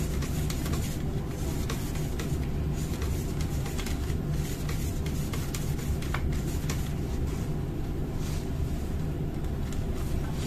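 A steady low background rumble, with faint rubbing strokes and small plastic clicks from a cloth wiping the rollers of an opened laser toner cartridge.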